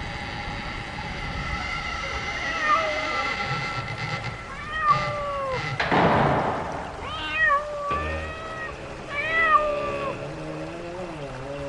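A cat meowing several times with drawn-out, rising-and-falling calls, part of a horror sound-effect track. A burst of hissing comes about six seconds in, and steady eerie tones sit under the calls.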